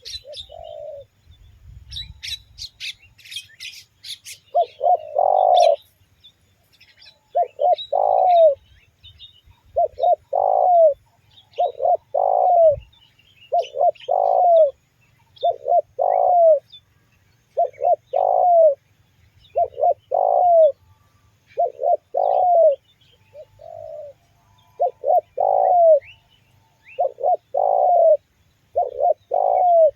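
Spotted doves cooing: a repeated multi-note coo phrase about every two seconds. Brief high chirps and clicks come in a few seconds in.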